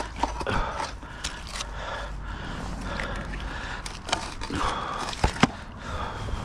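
Knocks and clacks of heavy cast-iron finds being handled and pulled off a neodymium fishing magnet, with rustling in between; two sharp clacks come close together about five seconds in.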